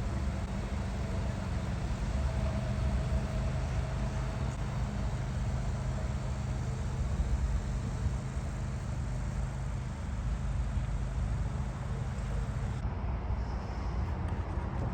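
Steady road and engine rumble of a car in motion, heard from inside the cabin: an even low drone with no distinct events.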